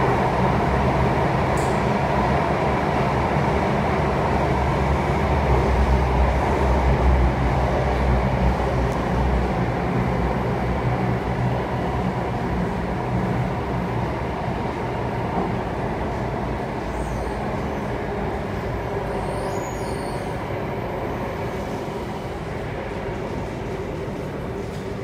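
Alstom Metropolis C830C metro train heard from inside the car while running: a steady rumble of wheels on rail with a low hum underneath. It gets a little louder about six seconds in, then grows gradually quieter through the second half.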